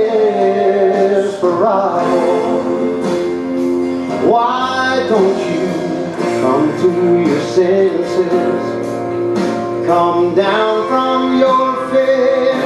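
A man singing a slow gospel song into a microphone, holding long notes that bend in pitch, over instrumental backing music.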